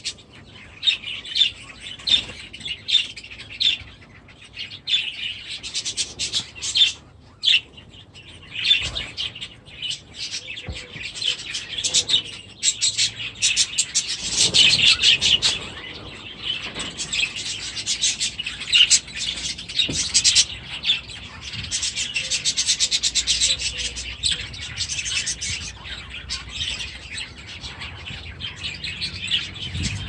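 A flock of budgerigars chirping and chattering, with short chirps throughout that thicken into continuous warbling chatter about halfway through and again a little later.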